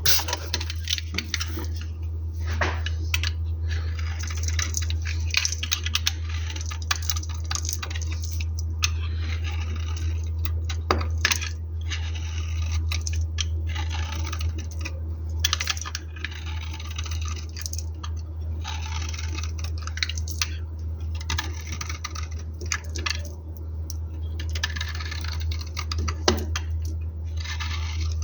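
Bar soap being cut into small cubes with a knife: repeated crisp crunching strokes and many light clicks as the cubes break apart and tumble. A steady low hum runs underneath.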